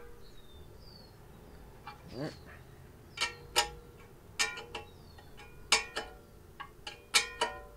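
Wrench clinking against steel oil-line fittings as they are tightened on an engine block: a dozen or so irregular, sharp metallic clinks that ring briefly.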